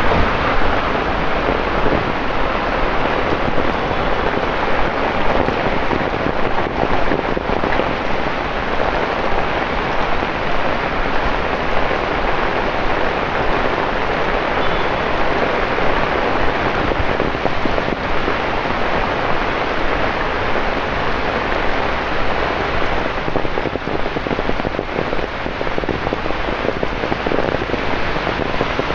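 Torrential rain pouring down on a city street and pavement, a loud, steady, dense hiss of countless drops hitting wet ground.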